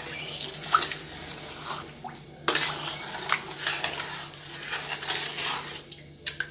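Wooden spoon stirring orange juice and sugar in a stainless steel pot: the liquid sloshes and the spoon knocks against the pot now and then. The stirring works the sugar into the juice before it is cooked into jam.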